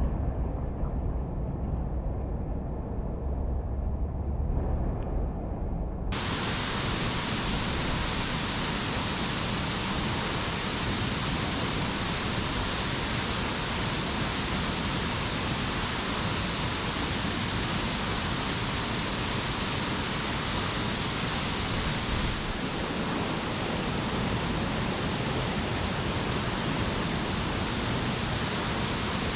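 A waterfall rushing: a steady, loud full-range noise that cuts in abruptly about six seconds in. Before that, a muffled low rumble.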